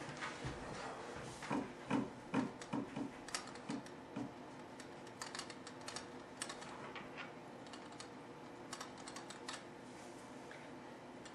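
Pen writing on paper against a wooden desk: quiet, irregular small scratches and clicks, with a run of soft knocks about two to four seconds in.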